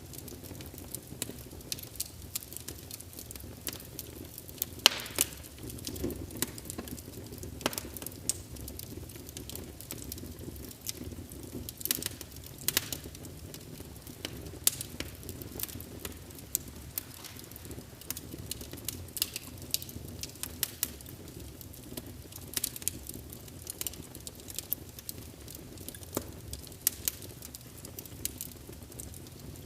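Birchwood fire crackling: a steady low rumble of flames with frequent sharp pops and snaps, one of the loudest about five seconds in.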